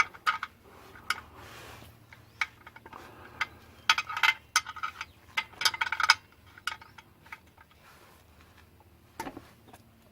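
Light metallic clicks and clinks of a hand tool on the oil drain plug as it is checked for tightness after an oil change. They come in short clusters, densest about four and six seconds in.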